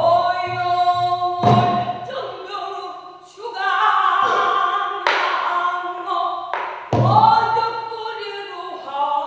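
Pansori singing: one voice sustaining and bending long sung notes, with a few strokes of the buk barrel drum.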